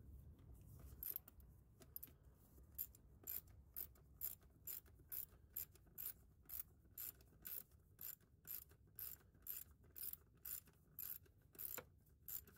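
Faint ratchet clicking in short strokes about twice a second as the intake hose clamp is tightened.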